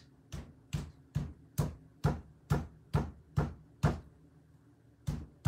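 Marker used as a ramming rod being struck from above by the other hand, tamping black powder down into a paper firecracker tube: about nine even knocks roughly two a second, a short pause, then two more.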